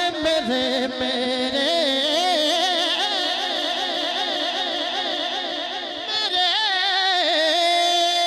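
Male voice singing a naat, holding long drawn-out notes with no clear words that waver up and down, then settling into a steadier held note near the end.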